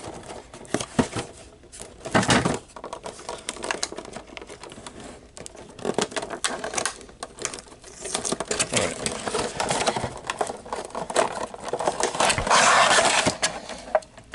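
Cardboard box being torn open by hand: fingers pick and scratch at the taped top flap, with many small clicks and crinkles of tape and card. There is a loud tear about two seconds in and a longer one near the end.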